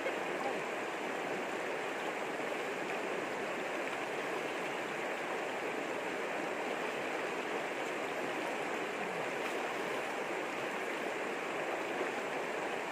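Shallow river running fast over a rocky bed, a steady rush of water.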